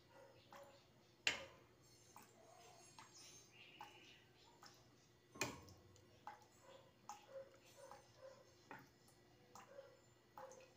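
Faint clinks and scrapes of a metal ladle against a soup pot and plate while soup is being served: a scattering of light ticks, with two sharper knocks about a second in and past the middle.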